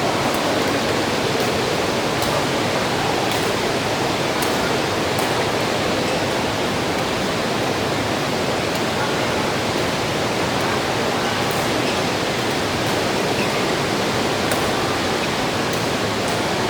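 Steady rain falling, a dense even hiss with faint scattered ticks of drops.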